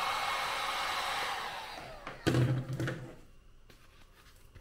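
Chicago Electric heat gun blowing hot air into a nylon pouch to soften a plastic insert, then switched off and winding down over about a second. About two seconds in, a single loud knock as it is set down on the bench, followed by faint handling.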